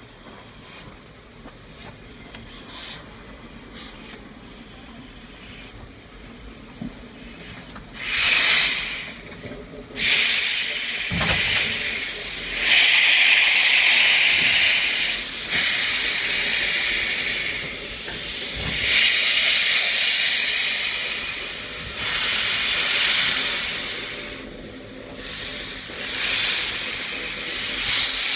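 Steam locomotive Mount Lyell No. 3 venting steam from low on the engine, a loud hiss that starts about eight seconds in and comes in repeated surges of a few seconds each.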